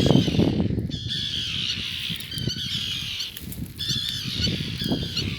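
A colony of common terns giving repeated harsh alarm calls, several birds overlapping, as they are disturbed at their nests. A low rumble sits under the calls in the first second.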